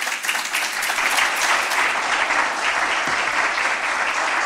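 An audience applauding steadily, the many hand-claps merged into a dense wash of sound.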